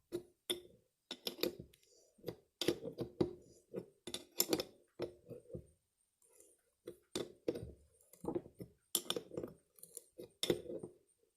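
Irregular metallic clinks and knocks of a wrench working on the carburetor's fuel strainer fitting as it is tightened down.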